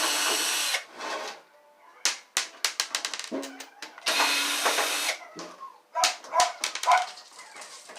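Electric drill/driver running in short bursts, backing screws out of a heater's casing, with a rapid clatter of screws and parts being handled between the runs. Near the end come three short, high yelp-like sounds.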